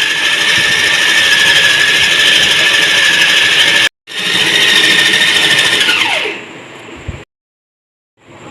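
Electric food chopper motor running at full speed with a steady high whine, chopping beef mince with spices and herbs. It breaks off abruptly just before four seconds in, picks up again, and winds down with a falling whine about six seconds in.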